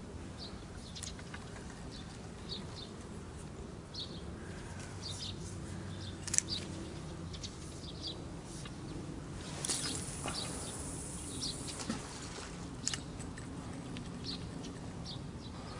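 Small birds chirping in short repeated calls over a steady low outdoor hum. A sharp click comes about six seconds in, and a rustle lasting about two seconds comes about ten seconds in.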